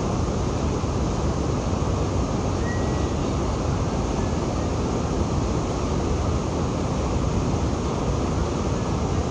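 Steady roar of Niagara Falls, with water pouring over the brink and the rapids running above it: an even, unbroken rushing noise.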